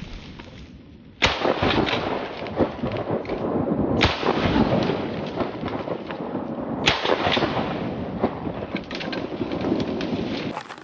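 Shotgun shots: three heavy booms about three seconds apart, each trailing off into a long rumble over steady noise.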